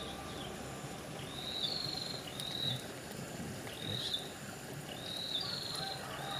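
A bird calling over and over: short, high chirped phrases repeated about once a second, over a steady outdoor hiss.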